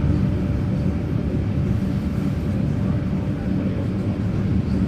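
Steady low rumble inside a vintage Red Rattler electric train carriage under way: wheels on the track and the running gear of the moving train.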